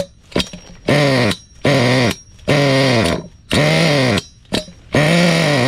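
Nitro glow engine of an LRP S8 Rebel 1/8-scale buggy cranked over in about five short bursts, each a buzzing whir that rises then falls in pitch, with a few clicks between. The engine turns but doesn't fire: first start, with fuel still working its way through the system.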